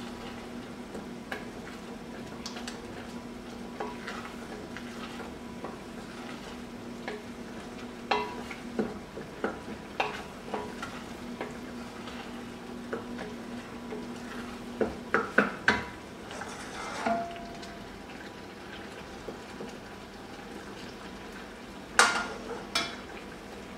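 Wooden spoon stirring risotto rice in an enamelled cast-iron pot, the rice bubbling gently in stock, with scattered knocks of the spoon against the pot and a quick cluster of them about fifteen seconds in. A sharp metal clink near the end as a ladle is taken up from the stock pan. A faint steady hum underneath stops about fifteen seconds in.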